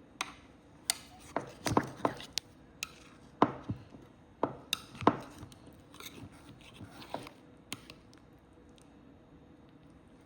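Kitchen clatter of dishes and utensils being handled: a dozen or so sharp clinks and knocks, irregularly spaced, dying out near the end.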